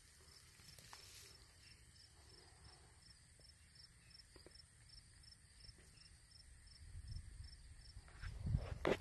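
Field insects calling: a faint high chirp repeating about three times a second over a steady thin high-pitched hiss. Near the end there is rustling with a few soft thumps and low rumbling.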